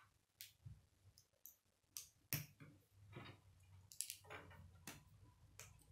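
Plastic K'nex connectors and rods clicking as they are snapped together and handled: about eight sharp clicks at uneven intervals.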